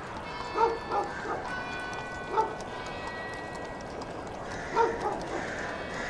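A dog barking in short single barks, about five of them, some in quick pairs, over a steady background of several held high tones.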